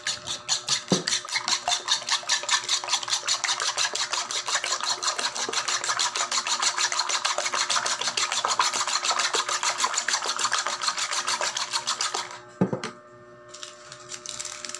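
Raw eggs being beaten with a metal spoon in a bowl: fast, even strokes clinking against the bowl, several a second. The beating stops about twelve seconds in, followed by a single knock.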